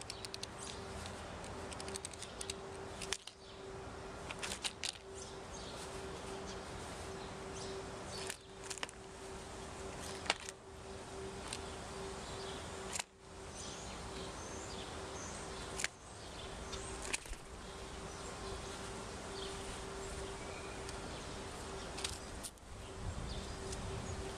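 Outdoor ambience with a steady faint hum, broken every second or two by short sharp taps and clicks: a blue jay's bill picking at seeds and peanuts on a plastic ground-feeder dish.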